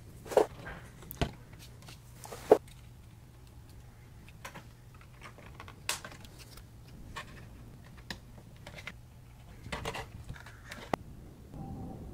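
Hard 3D-printed plastic model car body parts clicking and knocking as they are handled and pressed together, with three sharp knocks in the first three seconds and lighter taps after. A steady low hum sits underneath.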